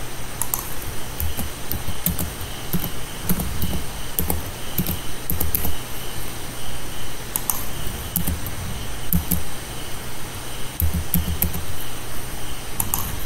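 Computer keyboard typing: short, irregular bursts of keystrokes with pauses between them, over a steady low hum.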